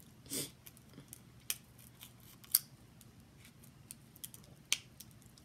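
Fork and snow crab leg shell clicking and crackling as crab meat is picked out: a few sharp, separate clicks, the loudest about two and a half seconds in.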